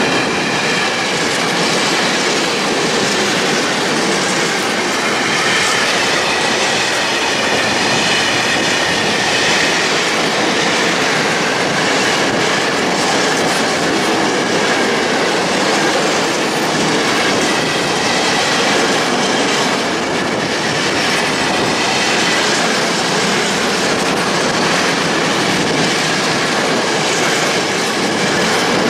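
Freight train of open coal wagons rolling past at close range: a steady, loud noise of wheels running on the rails, with a faint wavering high squeal from the wheels over it.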